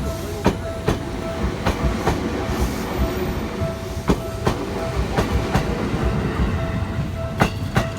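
Electric train rolling past at low speed, its wheels clacking over rail joints in pairs, a pair every second or two, over a low rumble. A level-crossing warning signal rings with a repeating tone.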